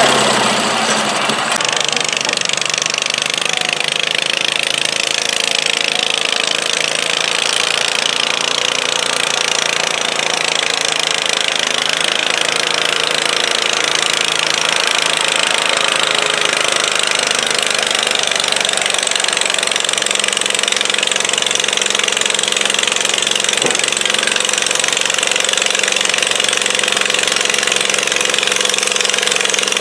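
Garden tractor engine running at a steady high speed under load, pulling a weight-transfer sled in a tractor pull.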